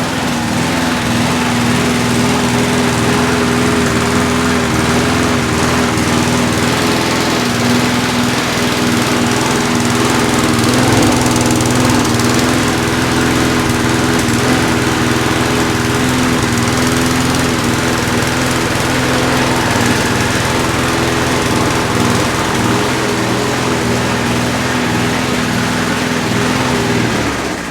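Briggs & Stratton single-cylinder engine of a Klippo lawn mower running steadily at a fixed speed after priming, then winding down near the end.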